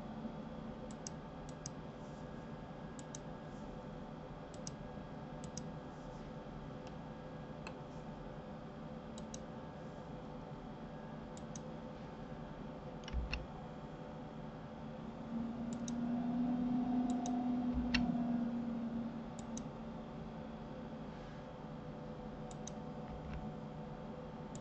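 Faint clicking of a computer mouse and keys, often in quick pairs, scattered over a steady electrical hum. A little past the middle, a louder low droning tone swells for about three seconds.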